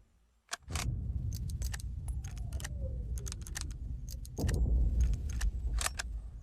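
Mosin-Nagant M91/30 bolt-action rifle being handled between shots: a run of sharp metallic clicks and clacks as the bolt is worked. Beneath it is a low rumble that grows louder about halfway through.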